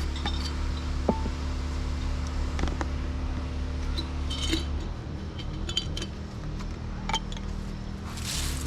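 Light clinks and taps of a glass jar being handled and filled with dried lemon verbena, scattered irregularly, over a steady low hum. A brief rush of noise comes near the end.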